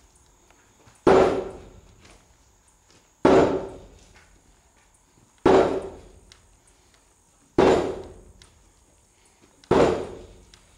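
Heavy hammer blows on the flywheel of an Ingersoll Rand POV diesel engine/air compressor, driving it onto its shaft: five hard strikes about two seconds apart, each ringing briefly in the metal.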